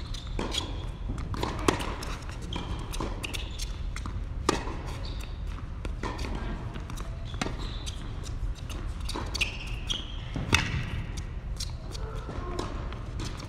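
Tennis rally on an indoor court: racket strikes and ball bounces, sharp cracks that ring in the large hall, the loudest about two, four and a half and ten and a half seconds in.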